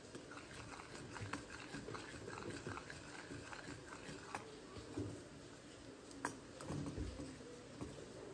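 A spoon stirring a thick white sauce in a steel saucepan: faint, soft wet squelching with light scrapes and a few sharper clicks of the spoon against the pan.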